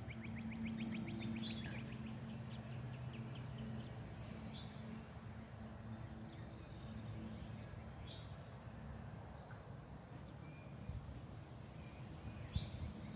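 Wild birds calling: short down-slurred whistled notes repeated every few seconds, with a quick rattling trill near the start, over a steady low background hum.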